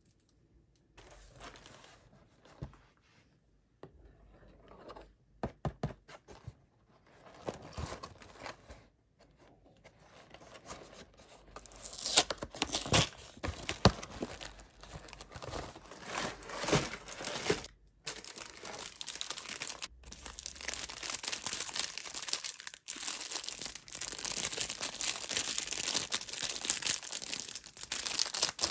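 Hands handling snack packaging, with soft scattered clicks and rustles at first. About halfway through, a glued cardboard box flap is ripped open in several loud tearing strokes. In the last third comes a dense, continuous crinkling of a cellophane wrapper around a biscotti bar.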